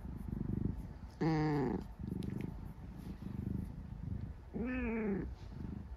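Brown tabby-and-white cat purring close to the microphone in steady, pulsing waves. Twice, about a second in and near the end, a short low murmur rises and falls over the purr.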